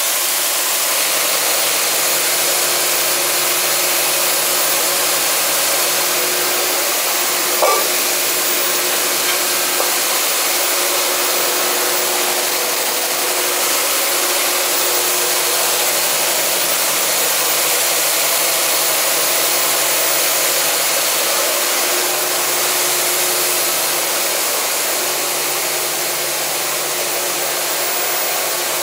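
High-speed flat-cam six-shuttle circular loom running: a loud, steady mechanical whirr with a faint hum underneath.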